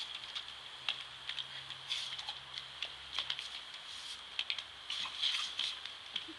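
Garden sprinkler jet hissing and water pattering on wet brick paving, broken by irregular short splashes and clicks as a dog snaps and paws at the spray.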